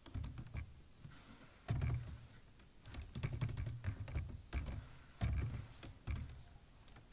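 Typing on a computer keyboard: short runs of keystrokes, four bursts separated by pauses of about a second.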